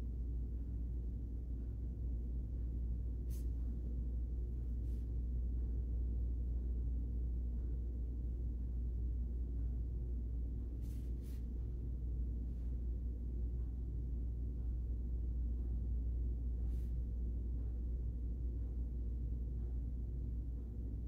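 Steady low hum of room or electrical background noise, with a few faint light ticks scattered through it.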